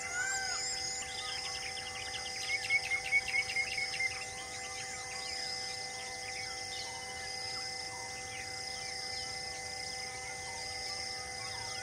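Wild birds calling and insects chirring: many short chirps and whistles, a high insect-like pulse repeating about once a second, and a loud rapid run of about eight whistled notes around two and a half seconds in. A steady held drone of a few even tones runs underneath.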